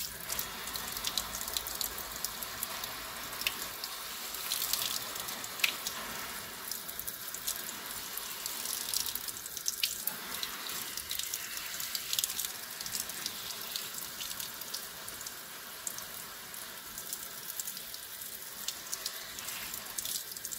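Kitchen tap on a shower-spray setting running steadily, the spray splashing over hands and a wet piece of fabric and down into the sink, with many small spatters. The water is rinsing water-soluble stabiliser film out of machine-stitched lace.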